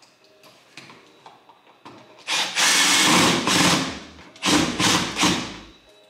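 Cordless drill/driver running screws in to fasten an electrical receptacle to its wall box: one run of about a second and a half, then a few short bursts near the end.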